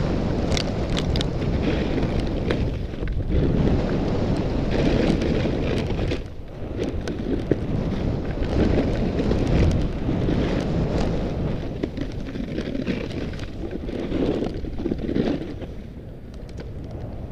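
Wind buffeting an action camera's microphone during a downhill ski run, a loud rush that swells and eases with speed. Under it, skis hiss and scrape over groomed and chopped-up snow.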